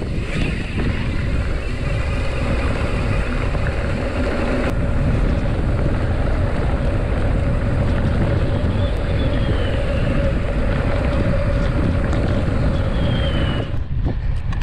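Wind buffeting the microphone while riding a mountain bike on a dirt road, with a steady hum underneath. It cuts off suddenly near the end.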